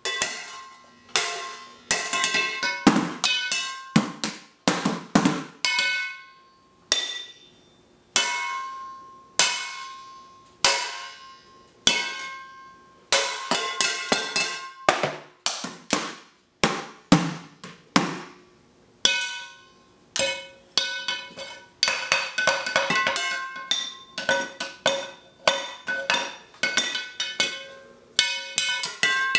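A small child drumming with sticks on pots, pans and upturned plastic basins used as a makeshift drum kit: irregular runs of clanging strikes, the metal pans ringing briefly after each hit.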